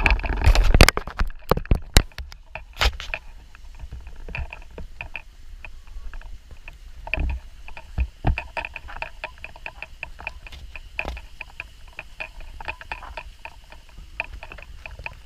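Hikers walking along a dirt trail and up concrete steps: footsteps and light ticking with each stride, over the low rumble of the moving body-worn camera. In the first three seconds come several loud knocks and rustles as the camera swings.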